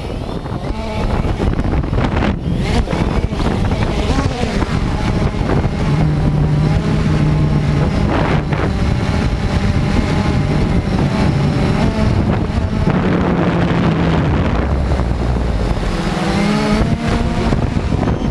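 Cheerson CX-20 quadcopter's electric motors and propellers whining steadily, the pitch stepping up and down as the throttle changes, with wind buffeting the microphone.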